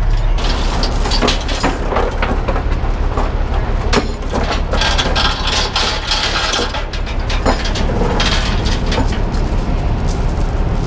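Heavy truck's diesel engine idling steadily, with scattered knocks and metallic clinks and rattles over it.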